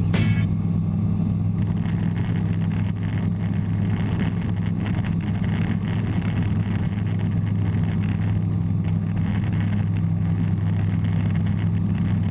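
Bristell light aircraft's piston engine and propeller running at a steady cruise, an even low drone.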